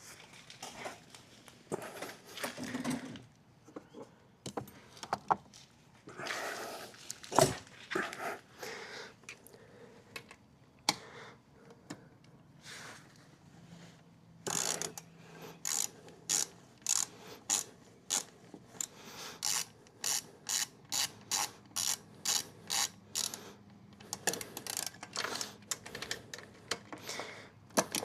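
Handling noises and knocks, then a ratchet wrench clicking steadily, about two clicks a second, through the second half. It is driving a drain/fill screw back into the outboard's lower unit gearcase after the gear lube has been filled.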